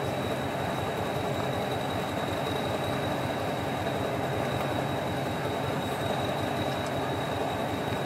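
Hastings diesel-electric multiple unit idling steadily while standing still: an even low engine note with a thin, steady high-pitched whine over it.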